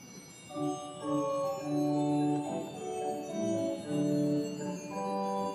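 Casavant pipe organ playing a slow series of sustained chords, starting about half a second in, with the high, soft tinkle of a digital Zimbelstern's bells above them that fades away early on.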